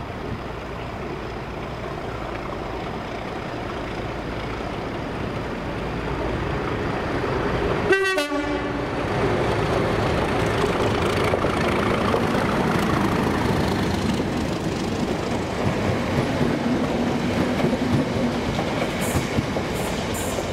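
Class 37 diesel locomotive 37884 approaching and passing with a Class 318 electric unit in tow. Its English Electric engine grows louder as it nears, and it sounds a short horn blast about eight seconds in.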